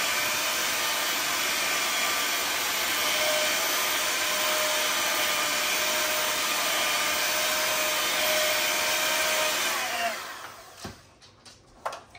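Electric hand mixer running steadily, its beaters whipping a cottage cheese and milk mixture in a bowl, then switched off about ten seconds in, followed by a few light knocks.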